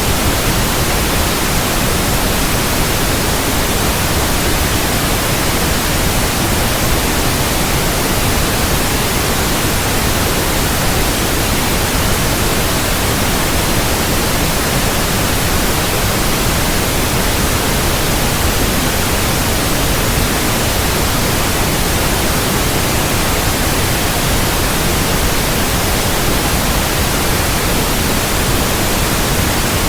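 Steady white noise: an even, unchanging hiss spread across all pitches, with no breaks or events.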